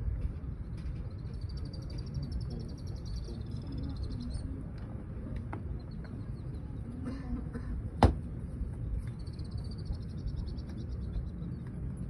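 Open-air ambience with a steady low wind rumble on the microphone. A high, rapid chattering trill sounds twice, and a single sharp click comes about eight seconds in.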